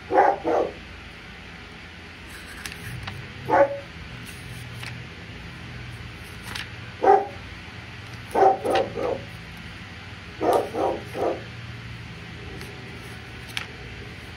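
A dog barking: about ten short barks, some single and some in quick runs of three, with pauses of a few seconds between them.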